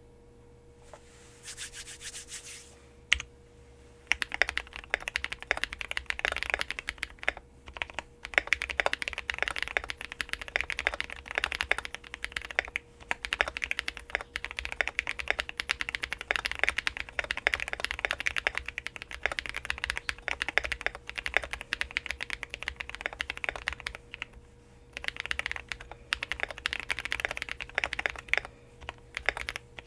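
Typing on a Space80 Apollo mechanical keyboard fitted with lubed, filmed Holy Panda tactile switches on an FR4 plate, with a masking-tape mod: a dense, poppy clacking of keystrokes. The typing starts about four seconds in and pauses briefly twice.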